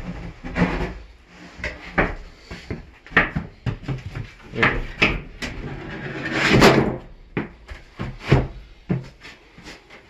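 Acrylic shower base knocking and scraping against the wood floor and alcove walls as it is set into place: a string of irregular thumps, with a longer, louder scrape past the middle.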